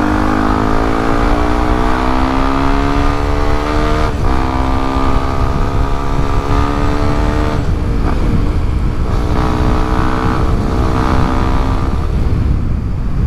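Yamaha WR155R's 155 cc single-cylinder engine accelerating hard, its pitch climbing, with brief breaks for gear changes about four and seven and a half seconds in. The throttle closes near the end. Wind rumble on the helmet camera's microphone lies underneath.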